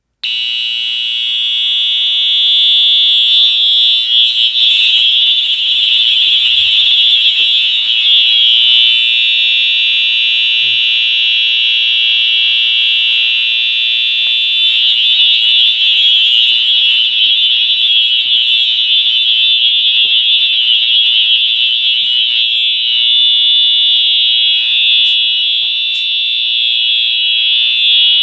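Electronic fire alarm horn sounding a loud, continuous, high-pitched tone with no breaks.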